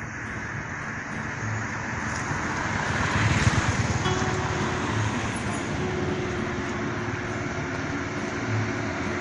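Road traffic running past, a steady rush of passing vehicles that swells loudest about three seconds in as one vehicle goes by.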